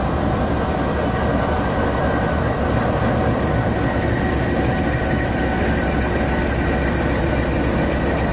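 GEU-20 diesel-electric locomotive running as it pulls slowly past at close range while leaving the station: a steady, heavy engine sound.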